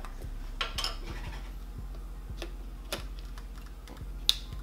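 A camera being handled: scattered light plastic clicks and a brief rustle about a second in, with one sharp click near the end.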